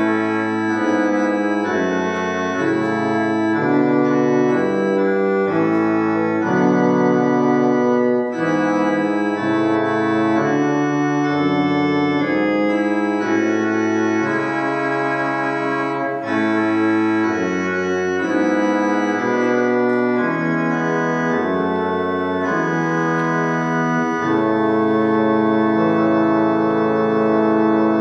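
Church organ playing slow held chords that change every second or two, swelling slightly into a long sustained chord near the end: the prelude before the service opens.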